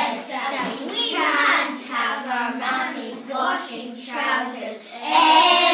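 A small group of young girls singing together unaccompanied, in short phrases.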